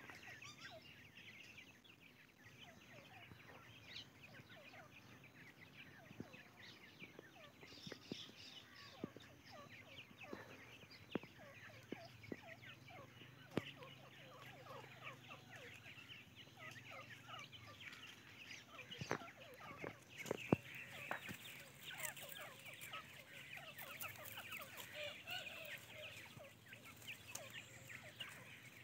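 Young teetar (francolin) chicks calling in many short, faint chirps and peeps as they forage, with a few sharp clicks among them.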